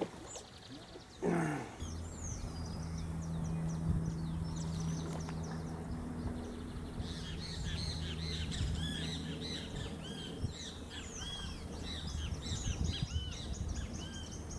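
Many small birds chirping and calling, a few at first and then a dense chorus from about halfway, over a steady low hum. About a second in there is a short loud sound that falls in pitch.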